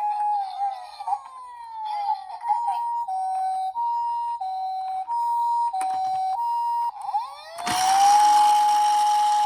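Emergency-vehicle sirens. A wailing siren holds its note and then slides down and fades. It gives way to the Japanese ambulance's two-tone hi-lo "pee-poh" siren, switching between a higher and a lower note about every two-thirds of a second. Near the end, a wailing siren rises again over a loud hissing roar.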